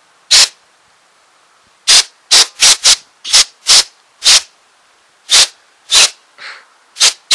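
Handheld compressed-air blow gun fired in about a dozen short, loud blasts in quick, irregular succession, blowing dust out of a computer case.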